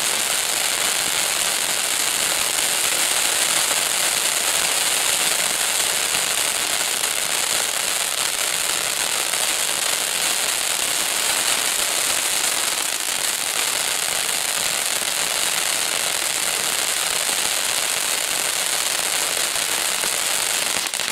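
Ground fountain firework spraying sparks with a steady, loud, high hiss.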